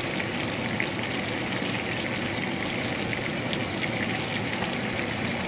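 Chopped onions and green bell peppers sizzling steadily in hot oil in a frying pan, with faint scattered crackles.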